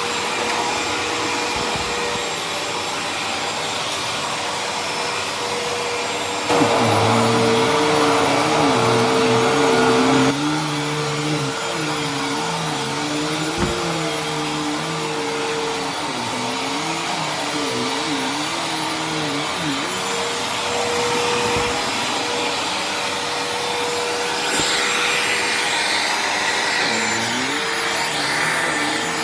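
Hoover Tempo bagless vacuum cleaner running on carpet. Its motor whine holds a steady pitch over a lower tone that wavers up and down. The sound is louder for about four seconds from some six seconds in.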